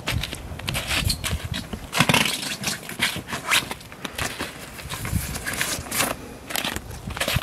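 Irregular rustling and scraping of tent fabric being pulled at the door flap, mixed with crunching steps on wet snow. The loudest scrape comes about two seconds in.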